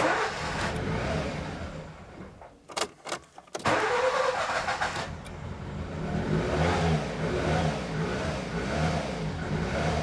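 Nissan Micra K11 four-cylinder petrol engine cranking on the starter, then catching about three and a half seconds in and running unevenly. It is misfiring on one cylinder, running on three of four, which the owner puts down to fouled spark plugs after flooding.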